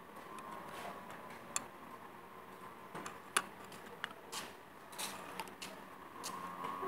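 Irregular light clicks and taps, a few every second, over a faint steady hum.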